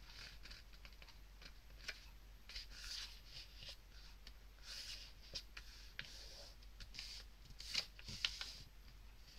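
A sheet of printing paper being folded by hand: soft rustling and sliding with scattered crisp ticks as fingers smooth and press the fold flat, a little louder about eight seconds in.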